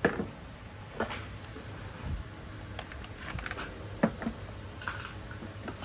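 Scattered light clicks and knocks from a cordless impact driver and its battery being handled, with a louder thump near the end. No motor is heard running.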